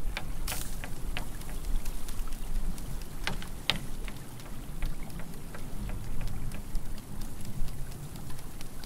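Water drops ticking irregularly on hard surfaces, a few a second, the loudest a little under four seconds in, over a steady low rumble of wind.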